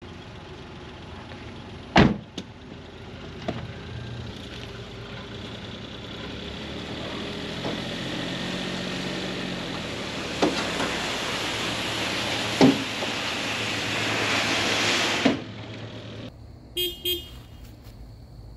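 A van door shutting with a sharp bang, then a Suzuki Every Join Turbo kei van running, the sound growing louder with a few knocks, until it cuts off. Near the end come two short horn toots.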